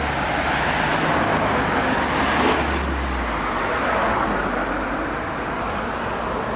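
Steady road traffic noise from passing cars, with a low engine hum that swells briefly about two and a half seconds in and eases off soon after.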